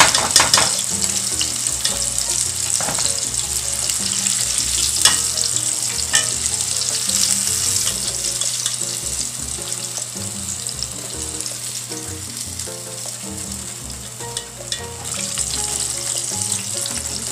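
Battered shrimp deep-frying in hot oil: a steady sizzle and crackle, loudest in the first second, with a few sharper pops along the way.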